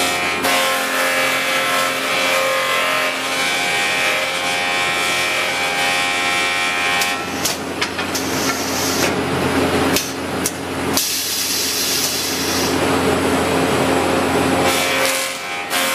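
Automatic woodworking machine running steadily, its long rotating drum machining a spinning wooden blank with a hissing, rasping noise over a motor hum. About halfway through come several sharp clunks as the loader arm and pneumatic clamps change the workpiece, then the machining starts again.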